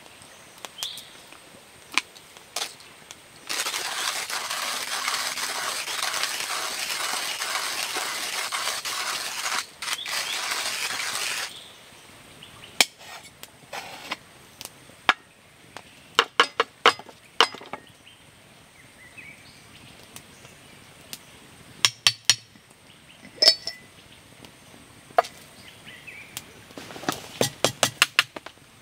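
Small camp cups and containers being handled. A steady rasping noise, loud and lasting about eight seconds, comes first, followed by many short sharp clinks and taps, some in quick runs near the end.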